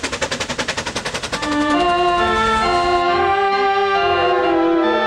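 Electronic keyboard played with an organ voice: held notes and chords, coming in about a second and a half in. Before that there is a fast, even clatter that fades as the music starts.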